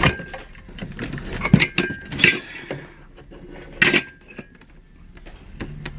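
Metal ceiling fan parts clinking and knocking together as they are handled: four sharp clinks, some leaving a brief metallic ring.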